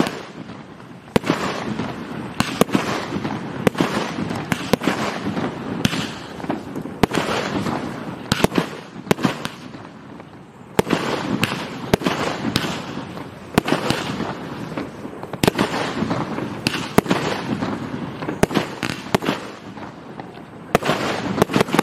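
500-gram, 20-shot daytime colour-smoke cake with thunder firing shot after shot: many sharp bangs from the launches and the thunder (salute) breaks, irregularly spaced and sometimes several a second, over a continuous rushing hiss.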